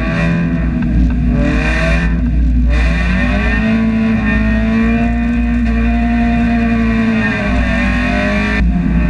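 Mazda Miata race car's four-cylinder engine heard from inside the cockpit. The revs swing up and down over the first few seconds, with bursts of hiss, then hold a steadier note that rises slightly and eases off near the end.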